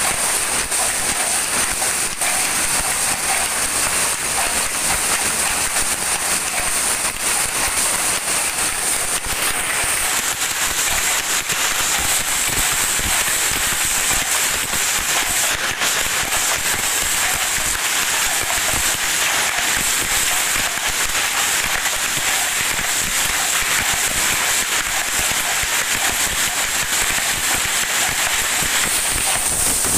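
Mechanical weaving looms running, a loud, continuous clatter of rapid clicks and rattles with no pause.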